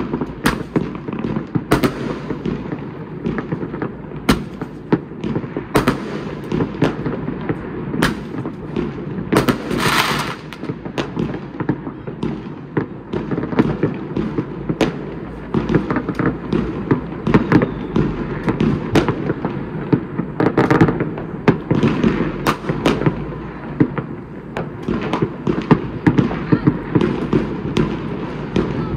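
New Year fireworks and firecrackers going off all across a city: a continuous rumble of distant bangs, broken by frequent sharp cracks and, about ten seconds in, a hiss lasting about a second.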